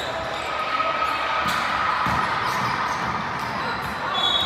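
Indoor basketball game: a basketball bouncing on the hardwood court and sneakers squeaking, over the steady echoing noise of the gym. A few short squeaks come in the first couple of seconds and again near the end.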